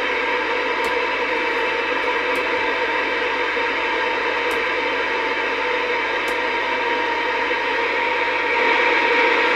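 Steady receiver static hissing from a CRT Superstar 120 CB radio's speaker, with no station on the channel, as the rotary channel selector is stepped up through the channels. The selector clicks faintly four times, and the static gets slightly louder near the end.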